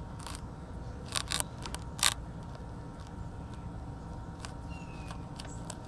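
Handling noise on the recording phone itself: a few short knocks and rubs, the loudest about two seconds in, as the phone is pressed onto velcro, over a steady low rumble.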